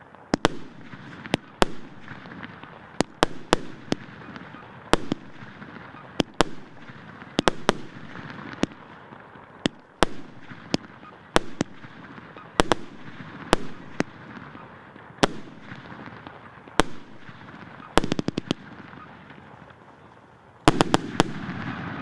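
Multi-shot consumer fireworks battery ("Vzryv emotsiy" SP045049 cake) firing salvo after salvo: sharp bangs every half second to second and a half, each trailing off as it fades. About a second before the end comes a quick cluster of shots with a heavier, lower rumble.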